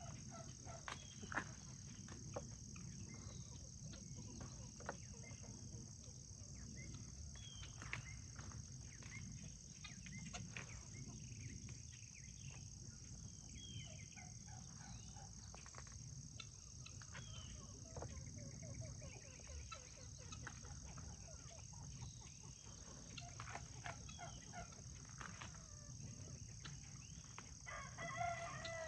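Chickens clucking, with a rooster crowing near the end. Underneath are scattered faint snaps and rustles of corn plants being picked, and a steady high buzz.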